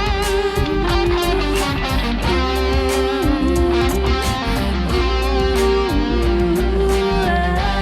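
Live rock band playing an instrumental passage: a lead line of long held notes that bend and waver, over a steady bass and regular drum hits.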